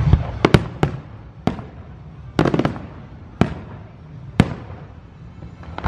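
Aerial firework shells bursting in a series of sharp bangs at irregular intervals, roughly one a second, with a quick cluster of bursts about two and a half seconds in.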